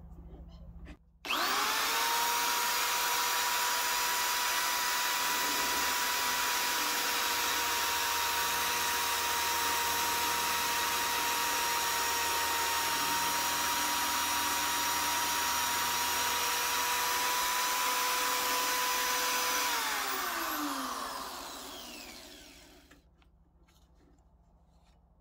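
WEN benchtop drill press motor switched on, rising quickly to speed and running with a steady whine while the bit bores into a piece of wood held in the vise. About 20 seconds in it is switched off and winds down, the whine falling in pitch and fading over a few seconds.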